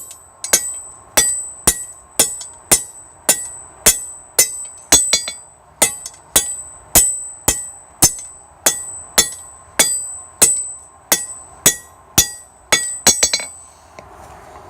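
Hand hammer striking a cold titanium piece on an anvil, about two blows a second, each with a high ringing note, stopping near the end. The metal is being beaten cold to break off slag.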